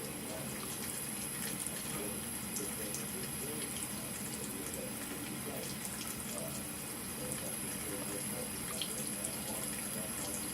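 Water running steadily from a bathroom faucet into the sink, with scattered small splashes and ticks.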